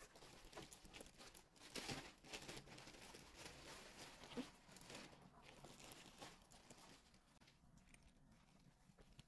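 Faint rustling and crinkling of plastic packaging being handled, with small crackles and taps, busiest for the first seven seconds and then fading.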